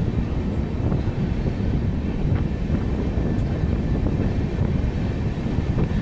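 LHB passenger coach running along the track at speed: a steady, loud rumble of wheels on rail, with a few faint clicks.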